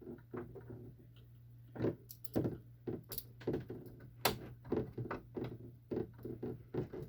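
Irregular clicks, taps and thuds from handling a small plastic portable door alarm and its sensor piece while fitting them against a door, over a faint steady low hum. The alarm itself is not sounding.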